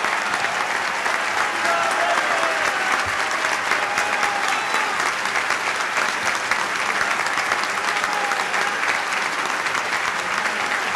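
Large audience applauding steadily, a dense mass of hand claps with voices calling out among them.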